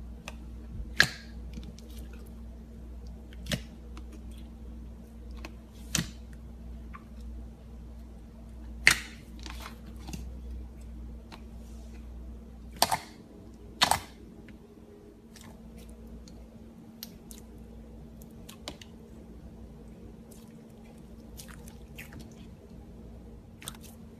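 Slime being handled, giving sharp pops and crackles at irregular intervals, about half a dozen of them loud, over a faint steady hum.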